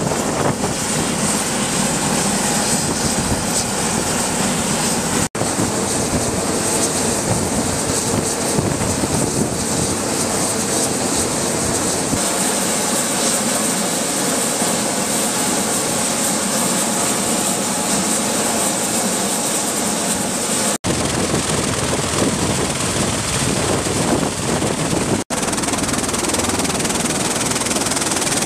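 MV-22B Osprey tiltrotors running, their twin turboshaft engines and spinning proprotors giving a steady, loud turbine whine and rotor noise. The noise cuts out for an instant three times.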